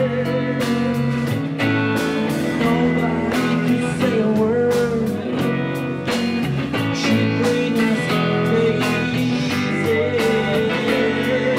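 Live rock band playing a song: electric guitars over a steady beat, with a man singing lead.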